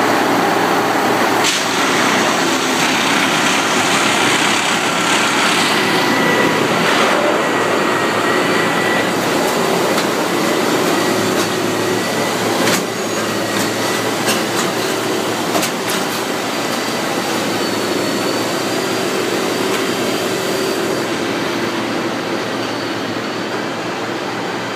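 Railway track tamping machines working: a loud, steady drone of engines and hydraulics with a faint held whine, broken by a few sharp metallic clanks.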